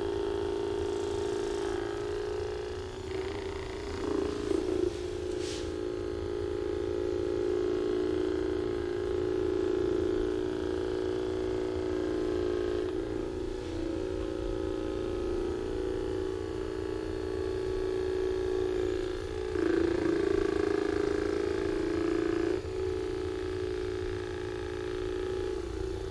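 Electric massager running with a steady buzzing hum, louder for short stretches about four seconds in and around twenty seconds in.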